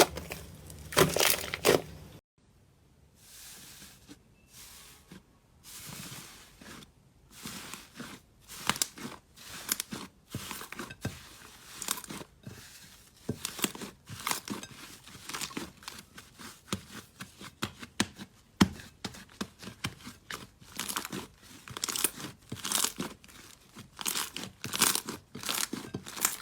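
Slime being squeezed and pressed by hand, making irregular crackling, crinkling and squishing noises. A denser run of loud clicks cuts off suddenly about two seconds in. After that the crackles start sparse and quieter, then grow busier.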